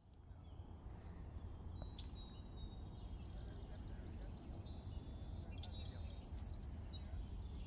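Faint ambient background that fades in: a steady low rumble with small birds chirping and twittering over it, and a quick run of rapid chirps about six seconds in.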